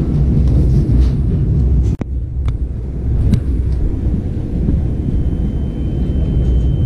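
Low, steady rumble of a moving train, heard from inside the carriage. The sound cuts out for an instant about two seconds in, and a thin, steady high tone comes in after about five seconds.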